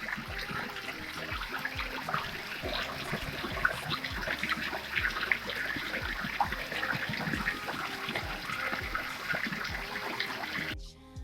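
Stream water flowing and trickling steadily, a dense splashing rush. It cuts out suddenly for a moment near the end.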